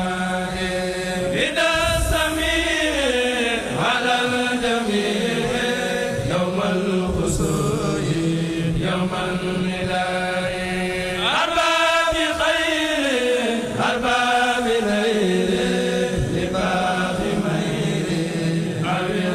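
A kurel, a group of male Mouride singers, chanting a khassida together. Their voices swell and fall in phrases every two or three seconds over a steady low held note.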